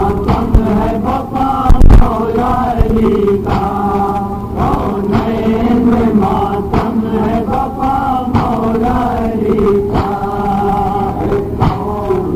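Men chanting a nauha, a Shia lament for Maula Ali, in a steady rhythmic line. Sharp slaps land about every second and a half, in time with the chant, as the mourners beat their chests (matam).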